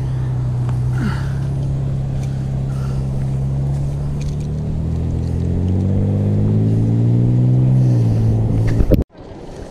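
An engine running steadily, its pitch rising over the second half, then cut off suddenly about nine seconds in.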